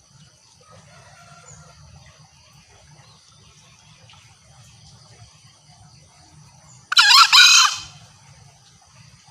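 Green junglefowl giving a single loud call lasting under a second, about seven seconds in, over steady insect chirring.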